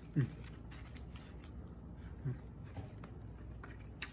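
Faint clicks and rustles of a soft, falling-apart burrito being handled and lifted to the mouth, with two brief low hums from the eater.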